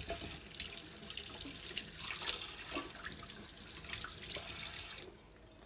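Tap running as hands are washed under it, the water splashing unevenly; the tap is shut off about five seconds in.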